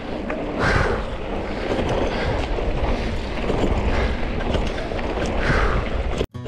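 Riding noise from a Yeti Arc hardtail mountain bike rolling over a gravelly dirt singletrack: tyres crunching on loose stones and small bumps, mixed with heavy wind rush on the bar-mounted camera's microphone. The sound cuts out abruptly near the end.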